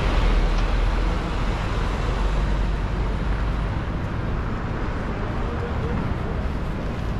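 Steady road traffic noise on a busy city street. A deep engine rumble is heaviest for the first couple of seconds, then eases.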